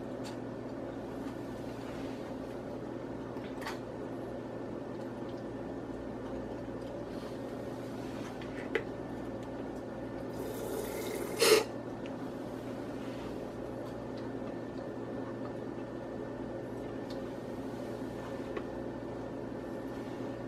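Plastic marinade-injector syringe forcing liquid into a raw turkey: faint wet squishes and clicks over a steady low hum, with one brief louder squirting hiss a little past halfway.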